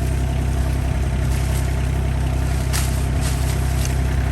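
Engine of an RK25 compact tractor running steadily at a constant speed.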